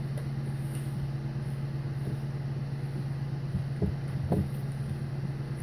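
A steady low mechanical hum, like a motor running, with a couple of faint knocks about four seconds in.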